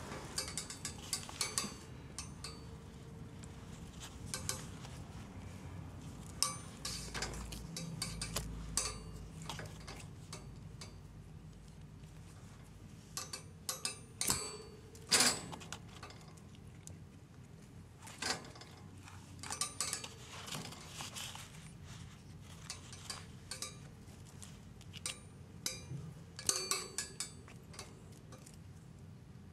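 Scattered light clicks and clinks, coming irregularly and sometimes in quick clusters, as a kitten plays with a wand teaser poked through the bars of a wire cage. The loudest clink is about halfway through.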